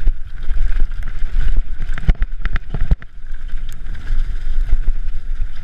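Mountain bike descending a rough, rocky trail: a constant rumble of tyres over stones and wind on the microphone, broken by sharp knocks and clatters as the bike jolts over rocks, in a dense cluster about two to three seconds in.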